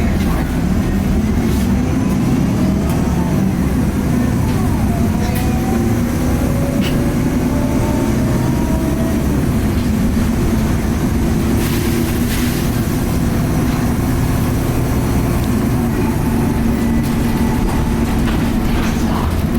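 2010 Nova Bus LFS articulated city bus underway, with a steady rumble from its Cummins ISL diesel engine. A turbo whine rises in pitch a few seconds in, and there is a short hiss around halfway.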